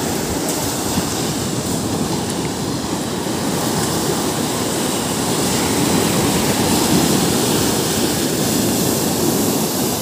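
Sea surf breaking and washing up the sand in a steady rush, swelling slightly about halfway through.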